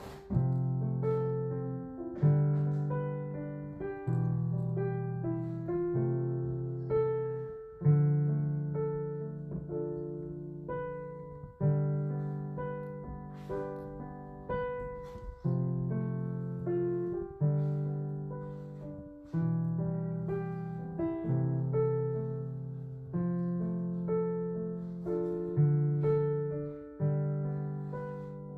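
Background piano music: slow, gentle chords, a new chord struck about every two seconds and left to fade, with a simple melody above.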